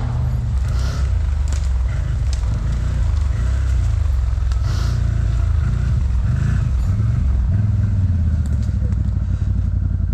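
Off-road vehicle engine running steadily while driving over rough ground, with a few scattered knocks and scrapes.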